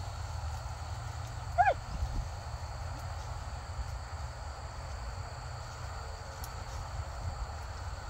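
A hunting hound gives one short bay about two seconds in, over a steady low rumble.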